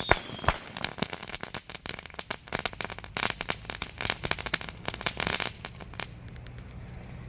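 Small category 1 consumer firework crackling: a dense run of rapid small pops and snaps that thins out and stops about six seconds in.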